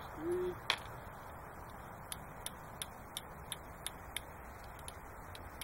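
Heritage Rough Rider single-action revolver with a .22 WMR cylinder being worked by hand: a sharp click under a second in, then an even run of seven clicks, about three a second, as the cylinder is turned chamber by chamber. A brief low tone comes just before the first click.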